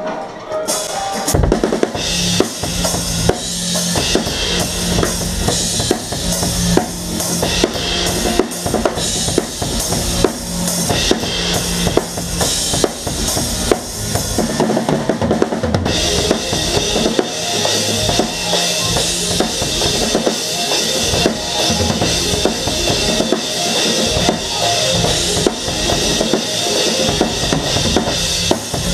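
A full drum kit played hard in a live band, with kick drum, snare and dense cymbal work over the band's other instruments. The band comes in about a second and a half in, and the cymbals grow louder and brighter about halfway through.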